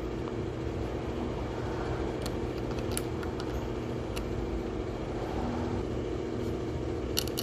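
Steady mechanical hum with a low rumble and several fixed tones, like a running machine in the background, with a few faint light clicks.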